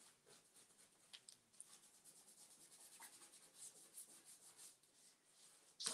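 Faint, quick scratchy strokes of a small paintbrush rubbing over decoupage paper on a flowerpot, working paint into the paper to take off the white.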